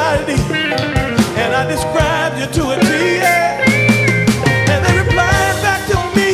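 A live band playing a song: a male lead vocal sung over electric guitar, bass guitar and a drum kit.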